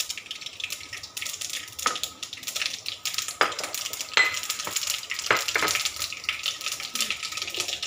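Mustard and fennel seeds sizzling in hot oil in a wok: a steady hiss that starts suddenly, with sharp crackling pops all through.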